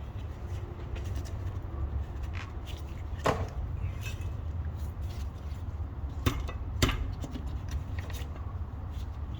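Metal tools knocking against metal parts during work: a few sharp clinks, the loudest about three seconds in with a short ring, then two more near six and seven seconds, over a steady low hum.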